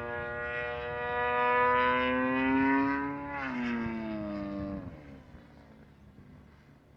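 Model airplane engine flying past. Its pitch climbs slightly, drops sharply as it passes about three seconds in, then dies away by about five seconds.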